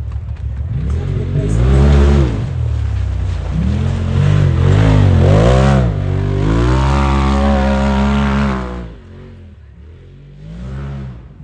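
Off-road vehicle engine revving hard in repeated surges, its pitch climbing and falling several times, then easing off about nine seconds in before one more short rev.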